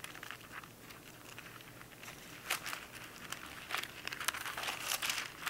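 Thin Bible pages being turned, a soft paper rustling with a few crisp flicks, more frequent in the second half.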